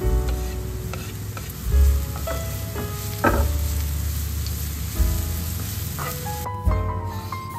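Sliced mushrooms and chopped spring onions sizzling as they fry in oil in a hot pan. The sizzle cuts off suddenly near the end.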